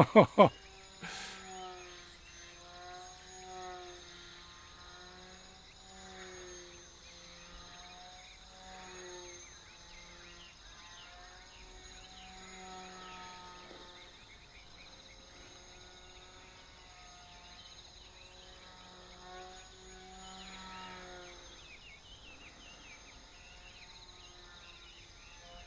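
Faint hum of a sub-100 g tethered RC plane's small electric motor and propeller, its pitch wavering up and down every second or two as the plane circles on its line, with a steady high chirring of crickets behind it.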